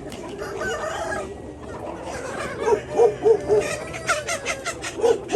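Chickens clucking in short repeated calls, with a longer drawn-out call near the end.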